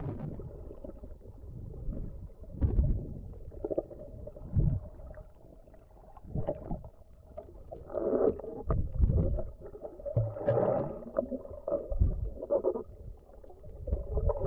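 Muffled underwater sound picked up by a camera held in the sea: irregular low rumbles and knocks of water moving around it, over a steady hum.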